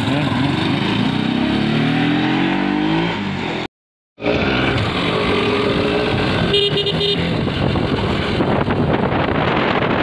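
Motorcycle engine pulling away, its pitch rising in repeated sweeps through the gears. After a brief cut, the engine runs at road speed with wind noise, and a horn beeps briefly partway through.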